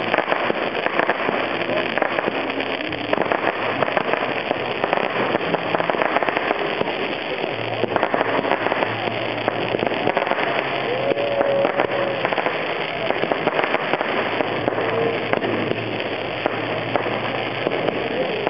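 Fireworks display: ground fountains and rising comets giving a steady hiss packed with dense, rapid crackling.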